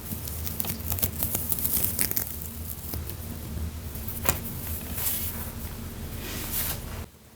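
Crackling, rustling handling noise from hands working the leather watch strap, with scattered sharp clicks, over a steady low hum. It all cuts off near the end.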